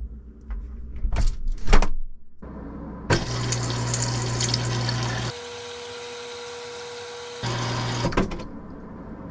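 Refrigerator's built-in auto-fill water pitcher filling: water rushes into the pitcher for about five seconds over a steady low hum, and goes quieter for a couple of seconds in the middle. A few knocks come first.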